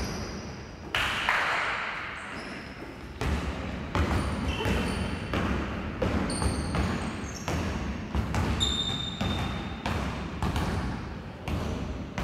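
Basketball bouncing on a hardwood gym floor: irregular thuds from dribbling and loose-ball bounces, with brief high sneaker squeaks, one held for about half a second near the middle.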